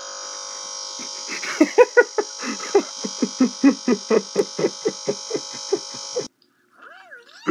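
Laptop speakers stuck in a buzzing audio loop after a Windows blue-screen crash, the last scrap of a playing burp sound repeated as a steady electronic buzz. From about a second and a half in, a run of short pulses, about four a second, sounds over the buzz, and the buzz cuts off suddenly about six seconds in.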